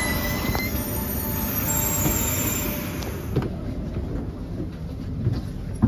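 SBB ETR610 high-speed train moving slowly along the platform, squealing with several steady high tones over a low rumble as it slows. About three seconds in, this gives way to a duller, lower hum inside the train.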